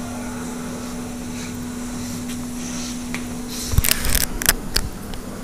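A steady hum with a single held tone, then, about three and a half seconds in, a short run of rustles and knocks as the handheld phone is moved about.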